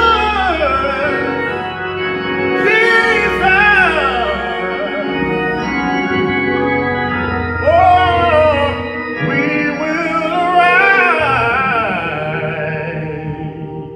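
A man singing long, sliding gospel vocal runs over sustained organ chords with held bass notes. The music fades near the end.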